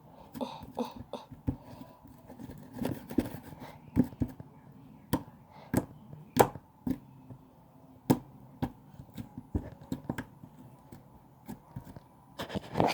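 Hands squishing and pulling sticky Play-Doh slime close to the microphone, making irregular wet clicks and pops several times a second.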